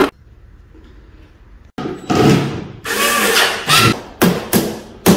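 A quiet stretch of low room noise, then flat-pack furniture assembly: a run of tool noise, then four sharp hammer knocks on a particleboard cabinet panel near the end.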